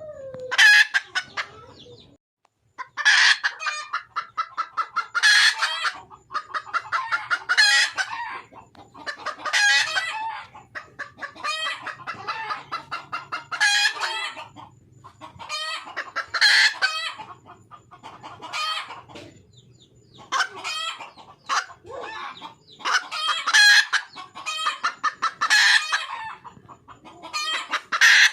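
Wild junglefowl hen cackling to call a mate, in repeated bouts of rapid clucks, one every two to three seconds.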